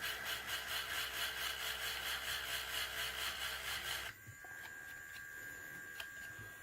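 Powered sander grinding dried putty flat on a resin part, a rough rasping that stops abruptly about four seconds in, leaving a faint steady electric hum.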